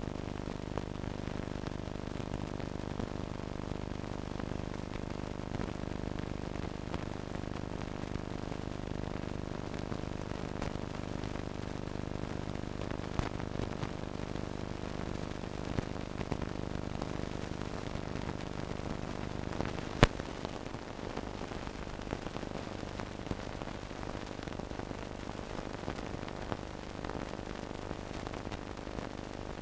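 Soundtrack noise of an old film print: a steady hiss and hum with scattered crackles and pops. A sharp pop comes about two-thirds of the way through, after which the low rumble drops.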